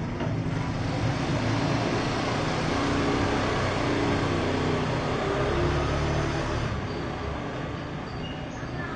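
A motor vehicle engine running with a steady low hum that eases off a little near the end.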